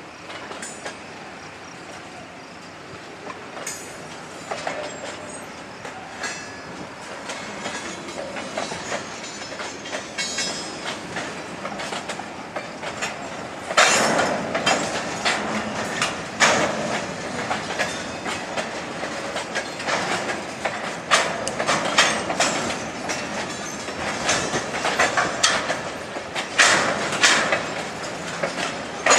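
Covered grain hopper cars rolling slowly past, their wheels clicking and clacking over the track with irregular sharp knocks. The sound grows louder about halfway through, as the cars pass close by.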